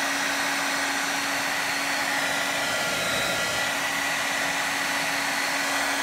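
Remington hair dryer running steadily on its high fan setting with low heat: an even rush of air over a steady low motor hum.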